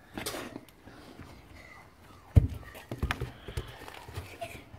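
A football being played on grass: one sharp thud about two and a half seconds in, then a quick run of lighter knocks from kicks and footsteps as players scramble for the ball.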